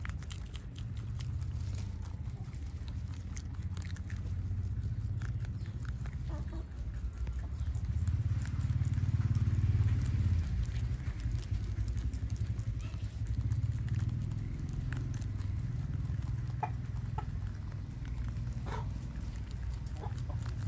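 A group of rabbits chewing and tearing fresh leafy greens: many small crisp crunching clicks, over a steady low rumble.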